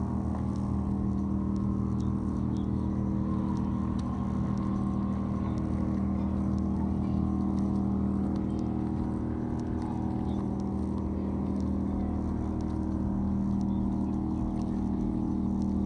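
An engine idling steadily: a constant low hum that holds the same pitch and level throughout.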